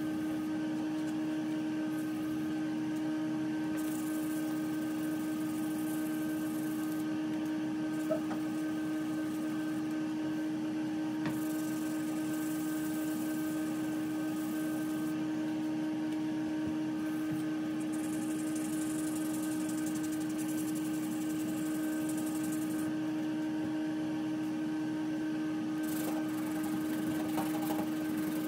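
Sandpaper rubbed by hand in quick back-and-forth strokes over a cured filler patch on a fiberglass tub surround, sanding it flush. A steady droning hum runs underneath.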